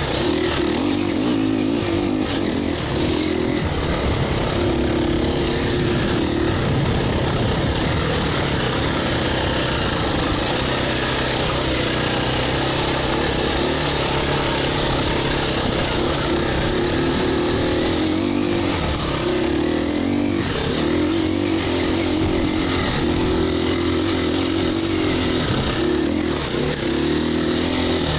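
Engine of a KTM 350 EXC-F, a single-cylinder four-stroke enduro bike, running continuously under load, its revs rising and falling as the throttle is worked.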